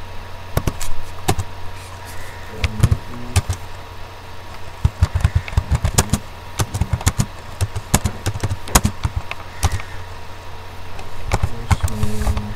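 Computer keyboard typing: irregular, quick key clicks over a steady low hum.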